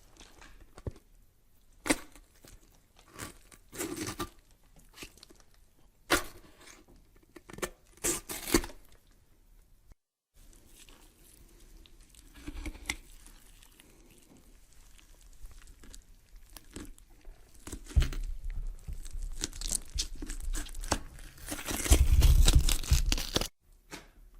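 Horror sound effects of cracking, tearing and crunching: scattered sharp snaps and cracks, then after a brief silence a longer stretch of crunching and tearing with low thumps that grows loudest near the end and stops abruptly.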